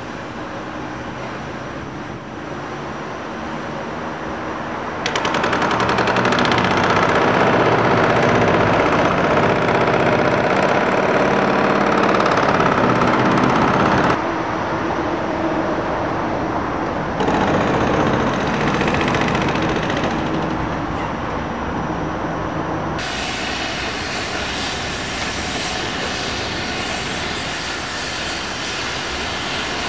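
Heavy diesel demolition machinery, a tracked excavator among it, running in a loud mechanical din. The noise grows louder about five seconds in, then changes abruptly several times.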